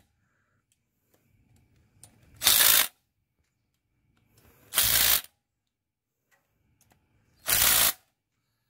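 Impact wrench firing in three short bursts about two and a half seconds apart, driving home bolts on an engine block's front in place of a torque wrench.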